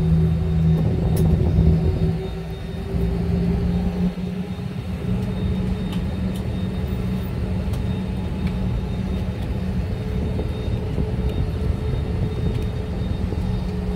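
Airbus A320 cabin noise on the ground after landing: a steady low hum and rumble with a constant drone, easing briefly about three seconds in.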